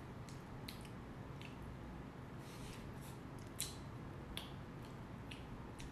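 Soft eating sounds, small mouth and spoon clicks, as ice cream is eaten off a watermelon scoop spoon. About nine scattered short clicks over a faint room hum, the sharpest about three and a half seconds in.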